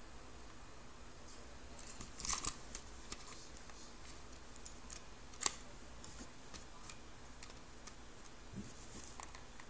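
Scattered sharp clicks and a brief rattle from a pistol being handled: a short cluster of clicks about two seconds in, a single sharp click midway, and a soft thump and another click near the end.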